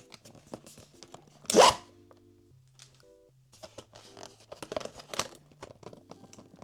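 Blind-box packaging torn open with one short, loud rip about one and a half seconds in, followed by crinkling and rustling as the packaging is handled, over soft background music.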